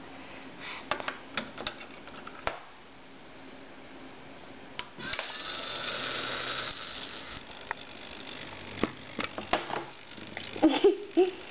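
A small electric motor whirring for about two and a half seconds midway, with scattered clicks and knocks from a small wooden servo test rig before and after it.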